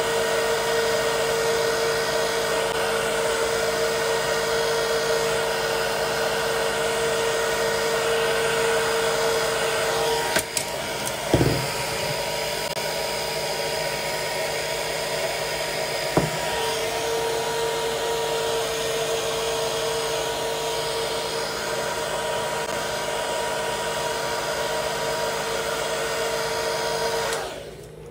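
Handheld hair dryer blowing steadily, with a whine in its motor noise. Midway the whine changes for several seconds, with two short knocks, and the dryer cuts off near the end.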